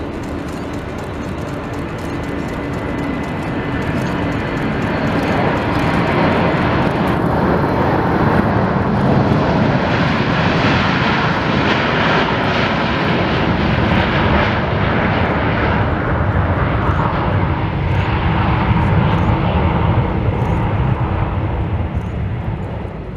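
Boeing 727-214F freighter's hushkitted Pratt & Whitney JT8D-17A jet engines at takeoff thrust as the aircraft rolls down the runway and lifts off. The loud jet noise builds over the first few seconds, holds steady, then starts to fade near the end.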